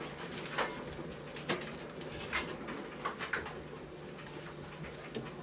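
Light knocks and scrapes of a person climbing into a ceiling attic hatch and handling things in the opening: about five short knocks in the first three and a half seconds, then quieter shuffling. A faint steady hum runs underneath.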